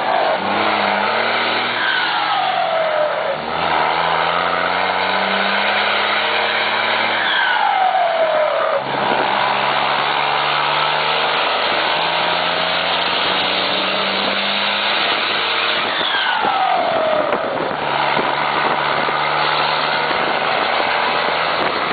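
Volkswagen Constellation truck's diesel engine pulling hard under load through the gears, its pitch climbing slowly and then dropping at three upshifts. Each upshift is preceded by a whistle that falls away.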